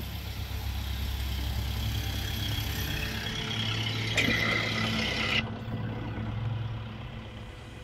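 Engine of a van-mounted hydro-jetter rig running steadily with a hiss over it. About four seconds in a louder hiss with a high ring sets in, then cuts off suddenly about a second later, leaving the low engine hum.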